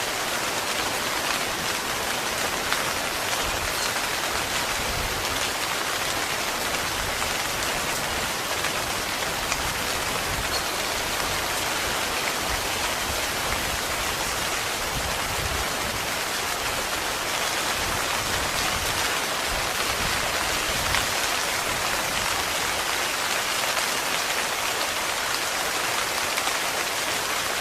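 Heavy rain falling steadily on a tent, a dense, even patter without letup.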